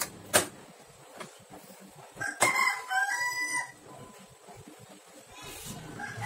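Two sharp clicks from metal parts of a photocopier being handled, the first and loudest about half a second in. After the second click, a bird calls in the background for about a second.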